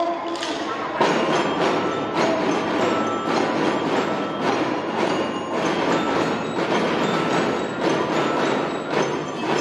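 Children's drum band playing: marching snare drums beating a steady rhythm of about two strokes a second, with some high ringing bell-like notes over the drumming.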